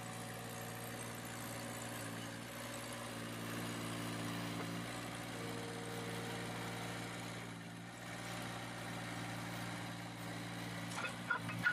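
An engine idling steadily with a low, even hum, with a few short, sharp sounds near the end.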